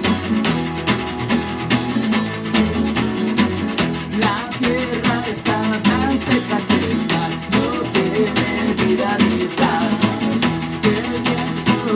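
Acoustic band playing an instrumental passage: strummed acoustic guitar keeping a steady rhythm over a walking bass line, with a wavering lead melody coming in about four seconds in.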